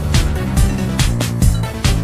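Electronic dance music with a steady beat and a deep, pitch-dropping kick drum.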